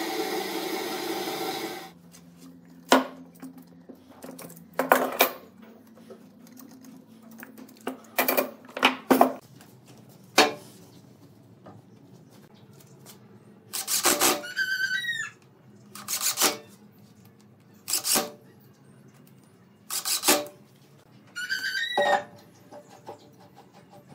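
Workshop handling sounds: about a dozen separate sharp knocks and clacks of metal and wood as bar clamps are handled and a glued-up wooden vase blank is fitted onto a wood lathe, twice with a short squeak. A steady whirring sound stops about two seconds in.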